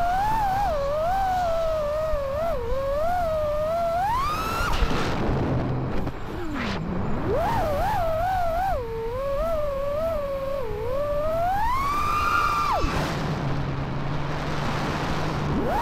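Five-inch FPV quadcopter's brushless motors and propellers whining, the pitch wavering constantly with the throttle. It climbs steeply in two throttle punches, about four and twelve seconds in, and drops low around six to seven seconds in.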